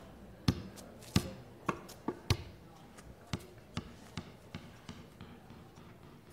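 An irregular series of sharp knocks, about two a second, loud at first and growing fainter.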